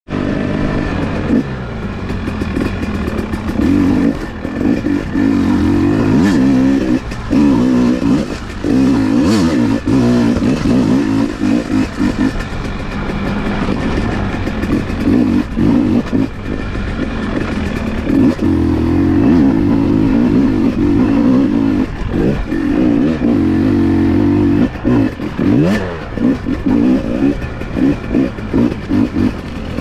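Off-road motorcycle engine revving up and down as the throttle opens and closes, with clatter and knocks over rough ground.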